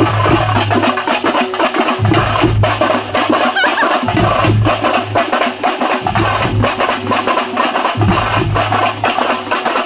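Procession drum troupe beating a fast, dense rhythm of sharp strokes, loud and continuous, with a deep low hum coming and going beneath it.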